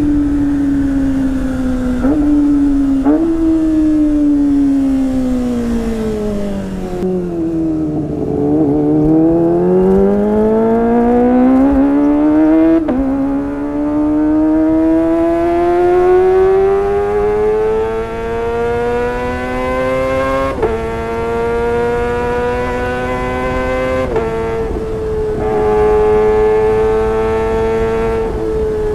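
Kawasaki ZX-25R's 250 cc inline-four engine running at high revs through a Sportisi Motorsport SRX aftermarket exhaust. The pitch falls for the first eight seconds or so, then climbs steadily for the rest, with several abrupt steps in pitch along the way.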